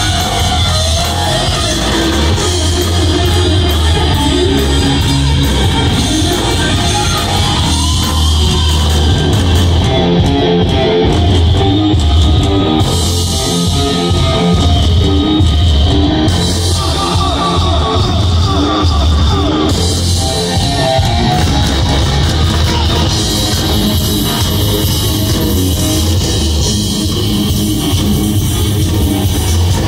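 Live hard rock band playing loud: a distorted Les Paul-style electric guitar plays fast lead runs over drums and bass.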